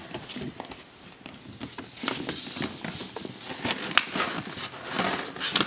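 Tissue paper rustling and crinkling as it is handled and pulled out of a box, with scattered sharp crackles, the loudest about four seconds in.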